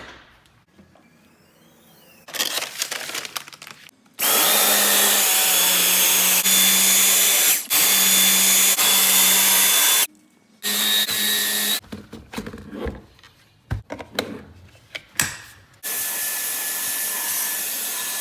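Dyson V10 cordless vacuum cleaner running in three stretches, a steady motor hum under rushing air noise, each cutting on and off sharply. Short clicks and knocks of handling fall between the runs.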